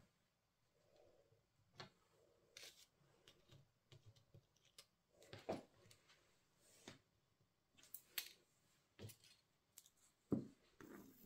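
Near silence broken by faint, irregular small clicks and taps as paper flower pieces and craft tools are handled on the work surface, a little louder about five and a half, eight and ten seconds in.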